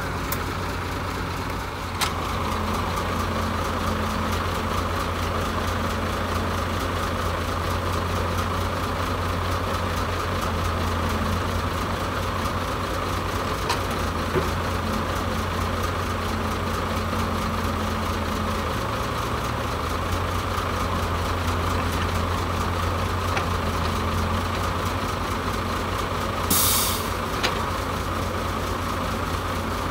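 Diesel engines of a FAW Liute dump truck and a working excavator running steadily at low speed, a constant low drone. A short burst of air hiss about three seconds before the end, like an air brake release.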